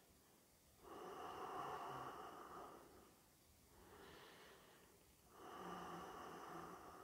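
A man breathing slowly and softly through his nose: two stronger breaths, about a second in and about five and a half seconds in, each lasting about two seconds, with a fainter one between them.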